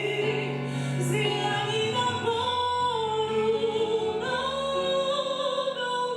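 A woman singing a slow Russian hymn solo, holding long notes with a slight waver, over steady low accompaniment.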